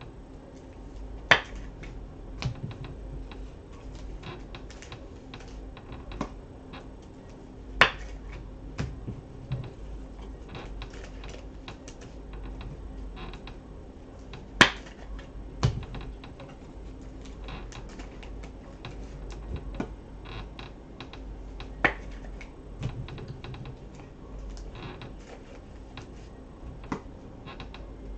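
Trading cards being handled and slid into clear plastic penny sleeves: a run of small, irregular clicks and plastic rustles, with a few sharper clicks standing out now and then.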